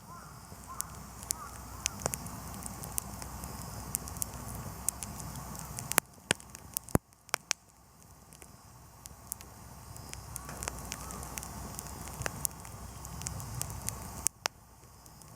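Wood campfire crackling, with irregular sharp pops over a low steady rumble. Two of the pops, about a second apart midway through, are the loudest.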